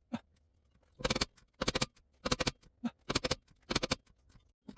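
A 3/8-inch ratchet clicking in short rattling bursts, about one stroke every half second, as a wheel hub assembly bolt is wound out.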